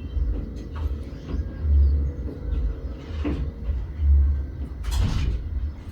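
A low rumble on the microphone swells and fades about every two seconds. A few light knocks come partway through and again near the end.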